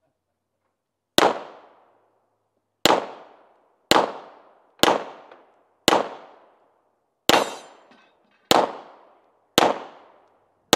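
A string of about nine pistol shots, roughly one a second, the last falling right at the end. Each shot trails off in a short echo.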